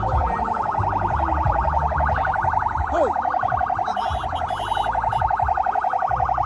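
An electronic alarm-like tone pulsing rapidly and steadily, about a dozen pulses a second, with a low rumble underneath and a brief falling whistle about three seconds in.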